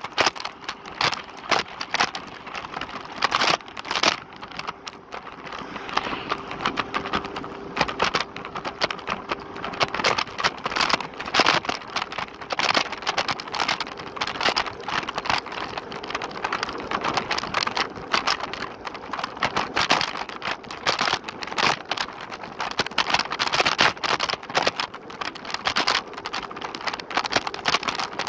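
Lime rental electric scooter rattling and clattering while riding, a dense irregular run of clicks and knocks. A faint steady tone runs underneath.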